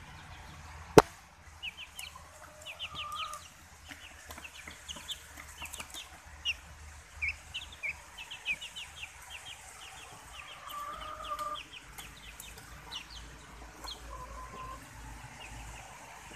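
Young bantam and silkie chickens calling: runs of quick, high, falling chirps with a few longer, lower calls among them. A single sharp click about a second in.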